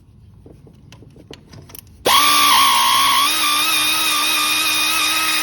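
A few faint light clicks, then about two seconds in an electric power tool's motor starts abruptly and runs steadily with a high whine, its pitch dipping briefly just after starting, as it spins an intake manifold nut off its stud.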